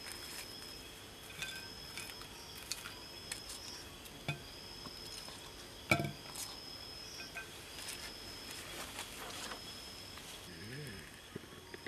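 Insects chirping in a high-pitched, repeated trill, with a few light knocks and clicks as onions, garlic and curry leaves are set down on a ceramic plate; the loudest knock comes about six seconds in.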